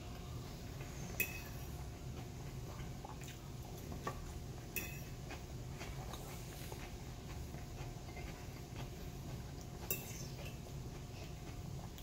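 Metal fork clinking against a plate about four times, two of them sharper and louder, as salad is picked up, over a steady low hum.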